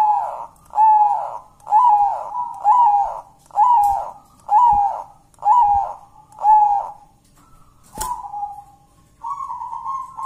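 Zebra dove (perkutut) cooing: a run of about eight short, pitched coos, roughly one a second, each rising slightly and then falling, which stops about seven seconds in. A sharp click follows, then a steadier wavering note.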